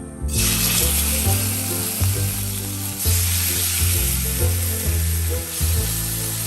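Meat for Korean barbecue sizzling as it starts frying in a hot pan. The sizzle starts suddenly about a third of a second in and holds steady.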